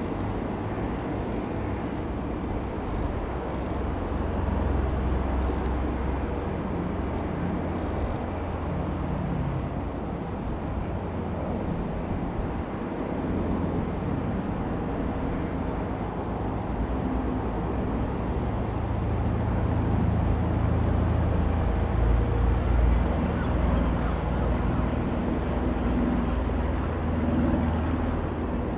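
Single piston engine of a Robin HR.200 light aeroplane droning as it flies over, growing louder about two-thirds of the way through.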